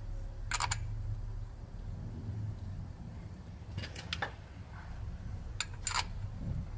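A few light metallic clicks and taps as steel bolts are handled and threaded by hand into a crankshaft pulley: one about half a second in, a small cluster around four seconds, and two more near the end. A steady low hum runs underneath.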